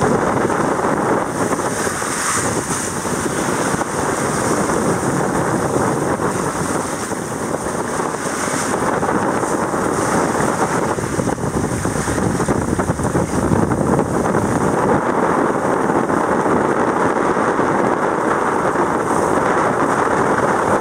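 Loud, steady rushing noise of wind and water aboard a sailboat under way, with no distinct tones or knocks.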